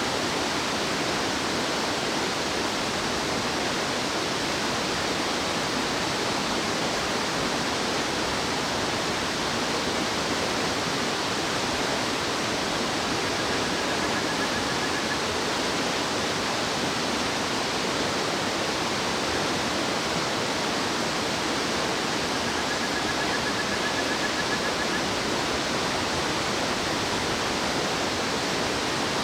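Steady rushing of a fast mountain stream. Twice, a faint, short, high trilling call rises above the water.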